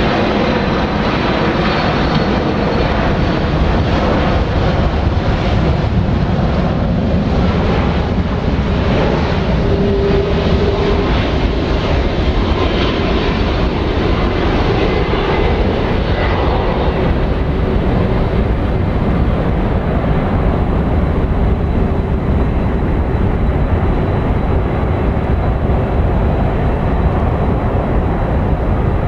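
Boeing 767-300 airliner on landing approach, its twin jet engines making a loud, steady noise with a faint high whine. The upper hiss dulls about two-thirds of the way through.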